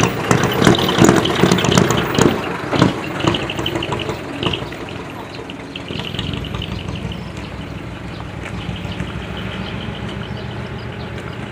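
Decorated heavy truck's diesel engine with a mani-wari (split exhaust manifold) exhaust, crackling with loud rapid pops as it drives past and pulls away, then running more steadily and more quietly as it moves off after about five seconds.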